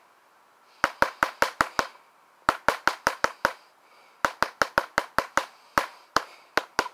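Drumsticks striking a hard surface, sharp clicks in quick runs of about six or seven strokes with short pauses between them, then a few spaced hits near the end.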